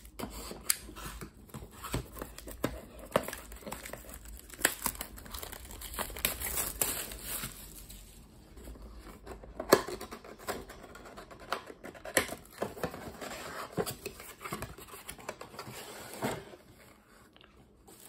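Plastic shrink-wrap being slit and torn off a cardboard trading-card box, crinkling and tearing with many sharp little crackles. Near the end the crackling thins out as the cardboard box and its inner tray are handled.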